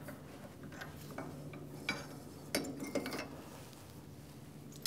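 Light metallic clicks and clinks of small steel tools and parts being handled at a metal lathe, with a few sharper taps about two to three seconds in. A faint low steady hum runs underneath.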